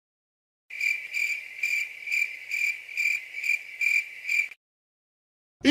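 Cricket chirping sound effect: a high trill pulsing about two and a half times a second, starting about a second in and cutting off suddenly near the end. This is the stock 'awkward silence' crickets meme sound.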